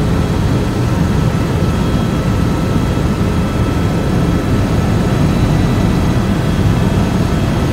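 Helicopter in flight heard from inside the cabin: the engine and rotor run at a steady, loud level, with a faint steady high whine above the low rumble.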